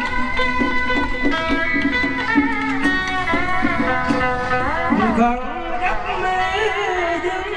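Music with a plucked-string instrument and a bending, gliding melody line over short, evenly repeated low notes.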